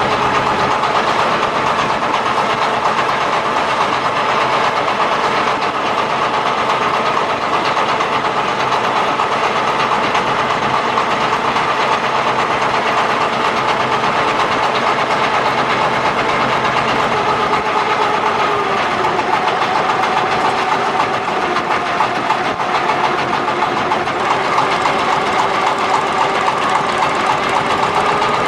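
A large engine running steadily under load, with a tonal drone whose pitch sags slightly about two-thirds of the way through.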